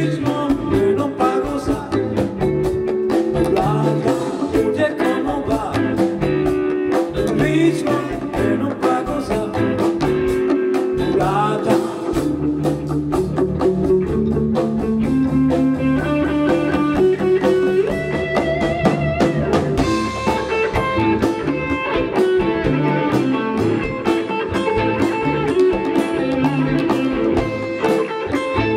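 Live band playing a blues-rock number on electric guitars, bass and drums, with a lead guitar line that bends its notes.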